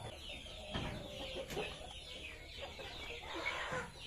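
Chickens clucking amid the busy high peeping of a crowd of young chicks, which are calling to be fed.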